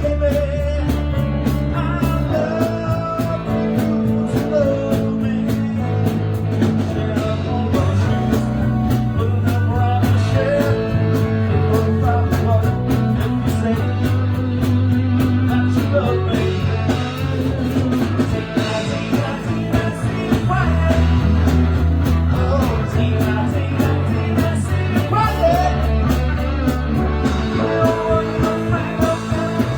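Live rock band playing, with guitar over a bass line that changes note every second or two, and steady drums.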